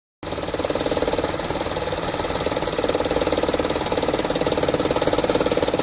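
Toyota Vitz's 1KR three-cylinder petrol engine idling with a steady pulsing beat. It is misfiring badly, with low idle revs and heavy vibration through the body.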